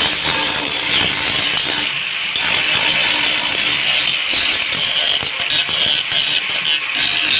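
Power tool running continuously with a steady high-pitched hiss.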